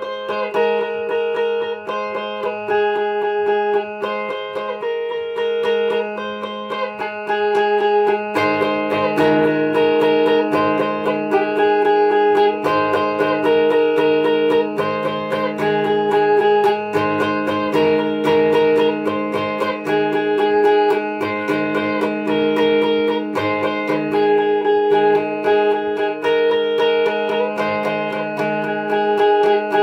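Electric guitar music: a quick, repeating picked melody over a held low note. About eight seconds in, a lower part joins and the sound gets louder.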